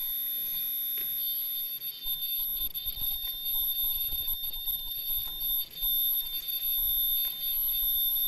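Disposable mask machine running: a steady high-pitched electronic whine over a low rumble, with light mechanical clicks.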